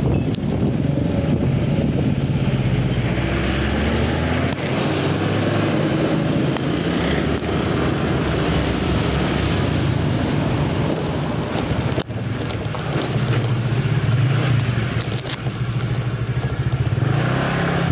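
Motorcycle engine running while riding, its pitch rising and falling with speed, with wind rushing over the microphone.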